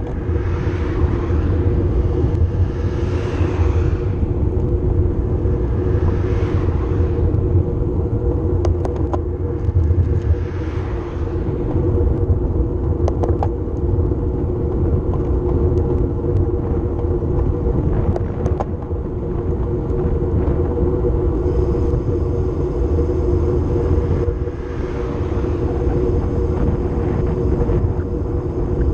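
Steady wind rumble over the microphone of a camera riding on a road bike in motion, with tyre hum from the road, swelling every few seconds; a few sharp clicks from bumps in the road.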